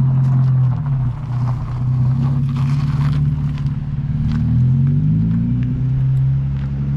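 Nissan 350Z's V6 engine running at low revs as the car pulls away, its pitch dipping and rising with the throttle, with a few faint ticks over it.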